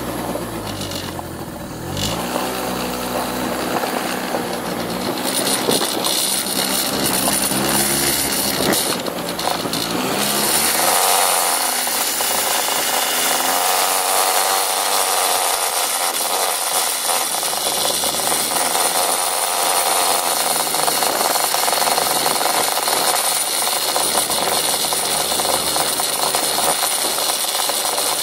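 Motor scooter's small engine running under way, its pitch falling and rising with the throttle over the first several seconds. From about ten seconds in, a steady rush of wind and road noise at speed covers most of it.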